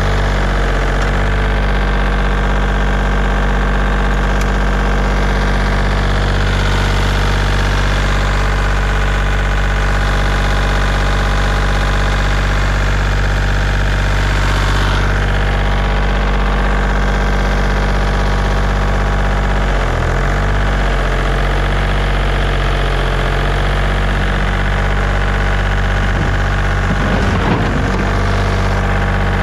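An engine running steadily at an even, low pitch, with brief wavers in its note about two-thirds of the way through and again near the end.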